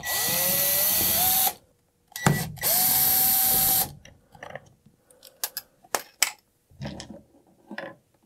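A small electric motor whirring up to speed twice, each run lasting about a second and a half and rising in pitch before it cuts off. Light clicks and knocks follow.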